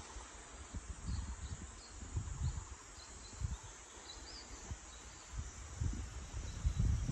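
Wind gusting against the microphone in irregular low rumbles, strongest near the end, over a steady high insect drone. A few faint, short high chirps come in the first half.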